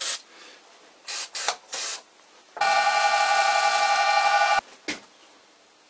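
Aerosol can of brake cleaner sprayed onto an overheating nylon workpiece and drill bit to cool them: a few short hissing squirts, then one long spray of about two seconds with a whistling tone in the hiss, then a last short squirt.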